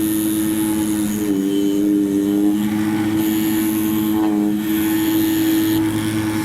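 CNC oscillating knife cutting machine running: a steady motor hum with whines that shift in pitch about a second and a half in and again past four seconds, as the drive motors change speed.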